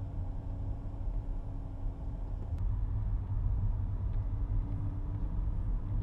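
Car driving, heard from inside the cabin: a steady low road-and-engine rumble with a faint constant hum over it.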